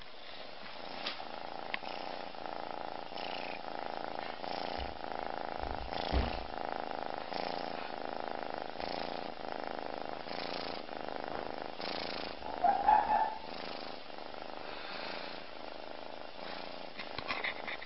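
Sleeping kitten snoring in a steady rhythm, a breath about every one and a half seconds. A brief louder sound comes about thirteen seconds in, and a few light clicks near the end.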